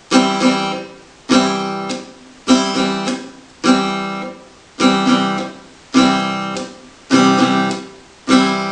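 Acoustic guitar chord strummed about once a second. Each chord rings briefly and is then cut short by the palm of the strumming hand, in a right-hand muting exercise. Some beats get a quick second strum before the stop.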